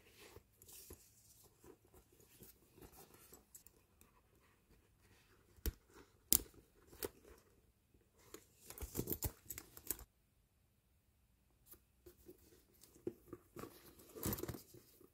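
Faint handling sounds: small metal strap rings and a clasp clicking against each other while soft leather rustles as they are worked. The clicks come in clusters, one about nine seconds in and another near the end, with a short silent gap between.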